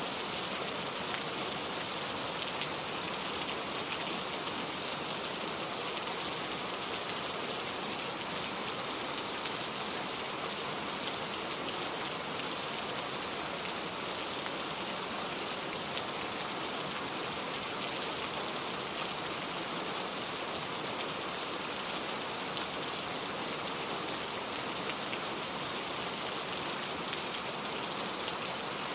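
Steady rain falling, an even hiss with a fine patter of individual drops.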